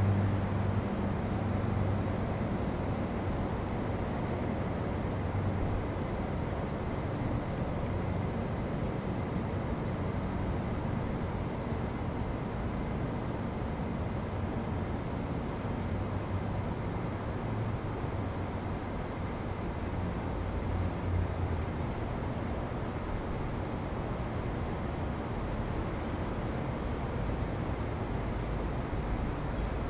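Steady, high-pitched chorus of night insects trilling without a break, over a low, even rumble.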